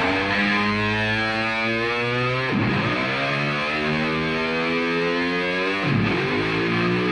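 Supercharged 6.2-litre HEMI V8 of a Dodge Challenger SRT Hellcat accelerating hard. The pitch climbs steadily, then drops sharply at an upshift, about two and a half seconds in and again near the end.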